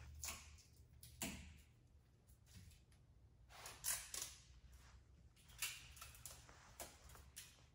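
Supplies being unpacked from a plastic bag and set down on a counter: brief rustles and light knocks, about six short sounds scattered through, over a faint low hum.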